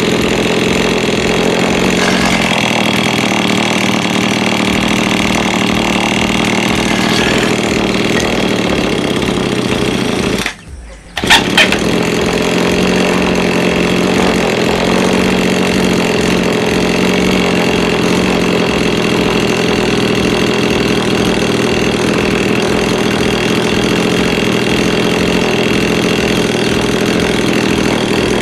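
Small two-stroke grass-cutter engine running steadily. About ten seconds in, the sound drops out for under a second, then comes back with a brief loud burst.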